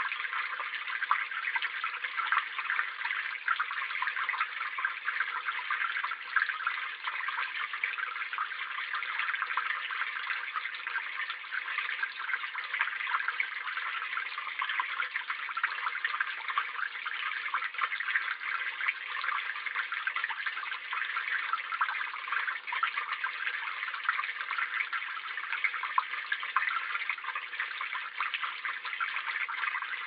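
Water pouring steadily from a metal spout of a stone fountain and splashing into the water-filled stone basin below.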